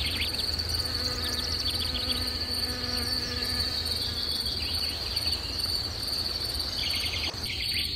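Insects: a steady high-pitched cricket-like trill, with a honeybee's low buzz for the first few seconds, over a steady low rumble.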